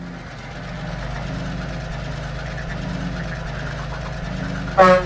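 Diesel locomotive engine running steadily with a low, even rumble as the engine pulls away. A short, loud horn blast sounds near the end.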